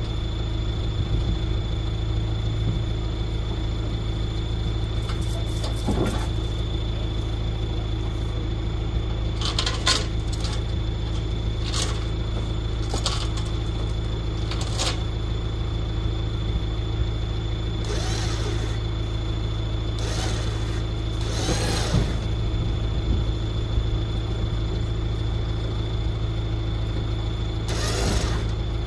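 A vehicle engine running steadily as a low hum, with a few light clinks and rattles partway through and some brief swishing sounds later on.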